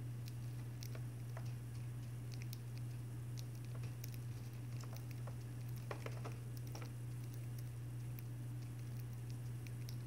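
Budgerigars cracking and pecking at seed in a cage feeder: small, irregular clicks and ticks, with a brief flurry about six seconds in, over a steady low hum.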